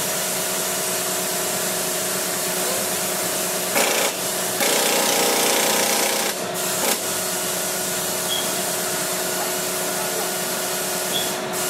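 A machine running steadily with a constant hum and hiss. A louder rush of noise comes in about four seconds in and lasts about two seconds.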